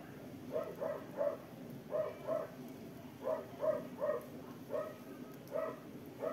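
A dog barking over and over, in quick runs of two or three short barks about every second.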